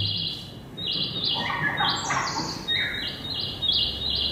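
A quick run of short, high chirping notes that step up and down in pitch, from the soundtrack of a cartoon clip played through the room's speakers.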